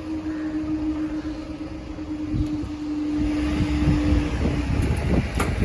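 Level crossing barriers rising, with a steady hum from the barrier mechanism that stops about four seconds in, over a low outdoor rumble.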